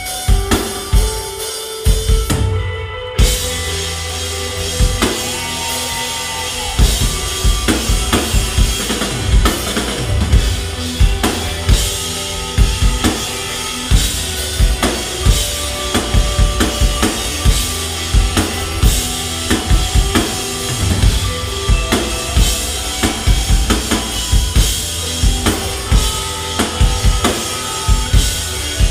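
An indie rock band playing live, with the drum kit's bass drum and snare driving a steady beat under sustained pitched instruments. The music cuts out briefly about two seconds in, then carries on.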